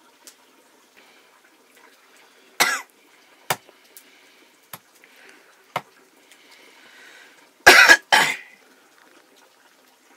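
A person coughing: one short cough about two and a half seconds in, then two loud coughs back to back near the end. A few sharp clicks or knocks, as of utensils, fall in between.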